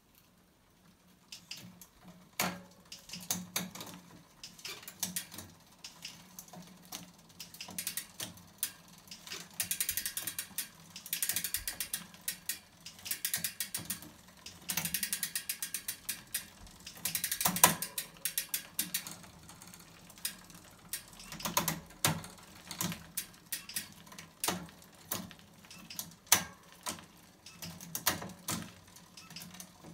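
Bicycle drivetrain turned by hand on a stand: the chain runs over a wide-range 10-42 SRAM XD cassette and 50/33 chainrings with a fast, dense rattling and ratchet-like clicking. Louder sharp clicks come every few seconds as the electronic Shimano Ultegra Di2 derailleurs shift the chain between cogs.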